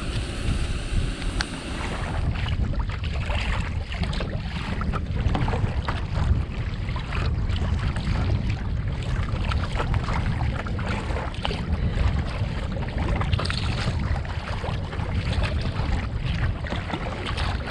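Wind buffeting the microphone in a steady low rumble, with choppy water splashing against a kayak as it is paddled across rough loch water.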